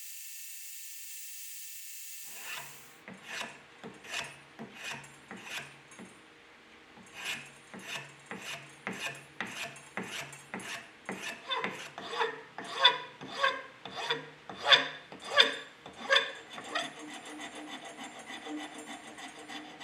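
Hand file rasping back and forth across a cast-resin screwdriver handle, about two strokes a second, growing louder partway through, then quicker and lighter near the end. Before the strokes begin, a steady high whir cuts off about two seconds in.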